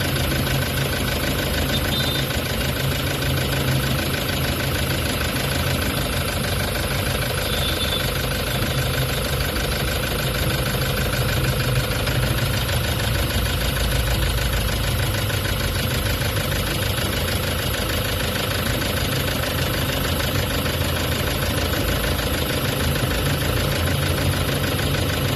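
Toyota HiAce common-rail diesel engine running steadily at idle. The mechanic traces its vibration to contact at the connecting-rod and main bearings.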